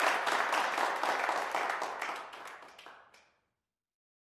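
Audience applauding, the clapping fading away over about three seconds and then cutting to silence.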